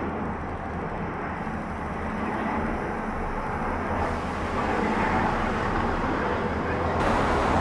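Dassault Falcon 50 business jet on final approach with its landing gear down, its three turbofan engines a steady rushing hum that grows gradually louder as it comes closer.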